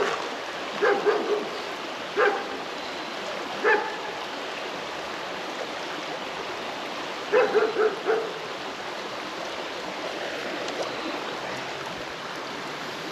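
A dog barking in short bursts: a few single barks in the first four seconds, then a quick run of barks about seven seconds in, over the steady rush of a shallow creek.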